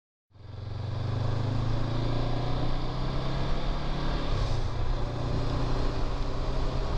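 Honda CB500X's parallel-twin engine running steadily at cruising speed, heard from the bike itself over a broad rush of riding noise. The sound fades in during the first second.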